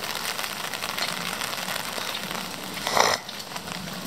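Outdoor street background: a steady hiss with small crackles, with a short, louder rustle about three seconds in.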